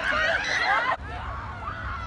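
Children's high-pitched voices shouting and laughing, cut off abruptly about a second in. After that there are only faint voices over a low wind rumble on the microphone.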